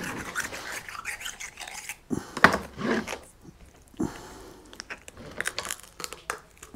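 Knife and hands cutting the cuttlebone out of a large cuttlefish on a plastic chopping board: irregular scraping, rubbing and small knocks.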